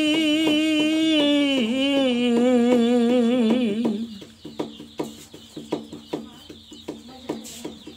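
A man singing a Bengali folk song unaccompanied holds a long, wavering note that ends about four seconds in. Short, regular clicks, about two or three a second, run under the note and carry on alone after it.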